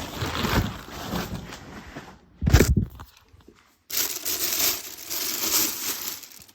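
Ceiling fan packaging being handled: rustling, crinkling and tearing of paper or plastic, with a louder bump about two and a half seconds in, a brief pause, then another stretch of rustling.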